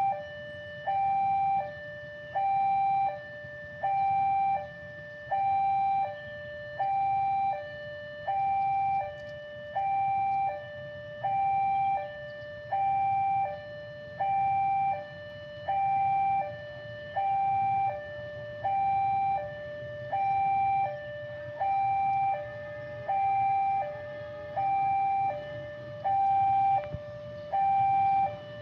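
Railway level-crossing warning alarm sounding, an electronic two-tone signal alternating high and low, about one cycle every second and a half, warning that the crossing is closed for an approaching train. A low steady rumble lies underneath.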